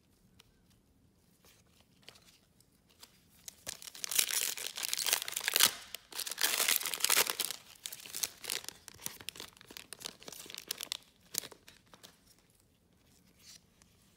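A trading-card pack's wrapper being torn open: loud rips beginning about four seconds in, then lighter crinkling of the wrapper that fades out a few seconds later.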